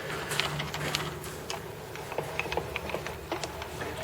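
Scattered light clicks and taps at irregular spacing, from parts and accessories being handled, over a steady low hum.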